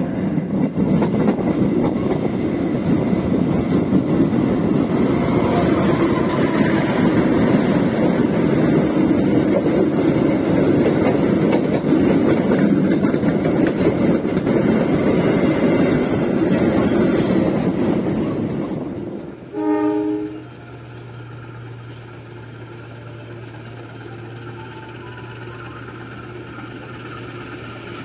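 Loud rushing rumble of a train running at speed, heard from an open carriage window as another train passes on the next track. About nineteen seconds in it cuts off. A short train horn blast follows, then the steady low hum of an idling diesel locomotive.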